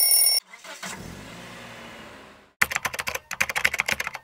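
A brief loud high steady tone that cuts off, then a low rumble that fades away, then typewriter keys clacking in quick succession from a little past halfway.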